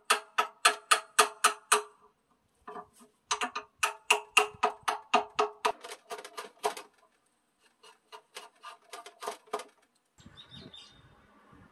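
A hand-held steel file rasping the edge of a wooden tenon in quick back-and-forth strokes, about four a second, in three runs with short pauses between them.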